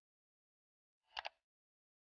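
A single short double click, two sharp strokes in quick succession, a little past a second in, against dead silence.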